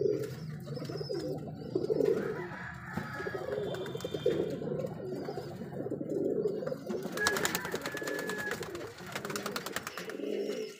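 Several domestic pigeons cooing, their low, wavering coos overlapping one after another.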